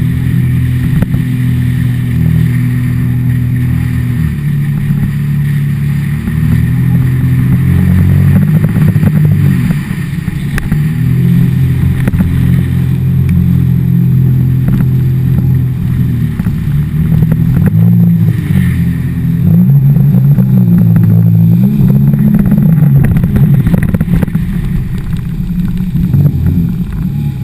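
Jet ski engine running at speed on open water, its pitch rising and falling over and over as the throttle is worked.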